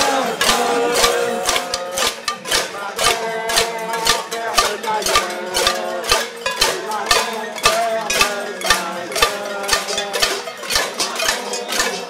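A crowd banging pots and pans in a casserolade protest: rapid, irregular metallic clanging, many strikes a second, with a ringing tone behind it.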